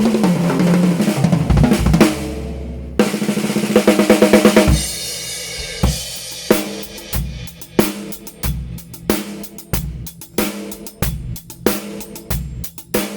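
Drum kit played with a snare whose shell is carved from one solid piece of Thai wood. Busy fills and rolls come first, with a fast roll around four seconds in. From about six seconds it settles into a steady, evenly spaced beat.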